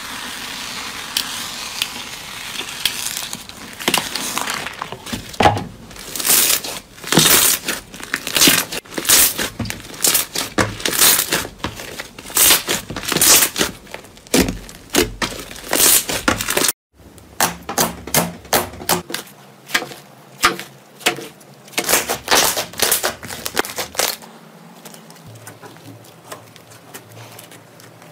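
Hands squishing and poking slime. A steady fizzing crackle at the start gives way to a rapid, irregular run of sharp clicks and pops as trapped air pockets burst. After a brief break the pops come more sparsely and more quietly.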